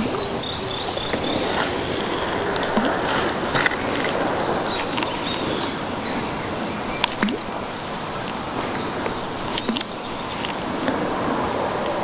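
Outdoor nature ambience: a steady hiss with small birds chirping briefly now and then, and a few faint ticks.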